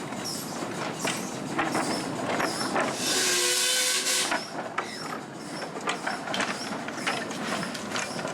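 Miniature railway train running with regular clicks about twice a second. About three seconds in, a locomotive whistle sounds for about a second with a loud hiss of steam, several pitches together.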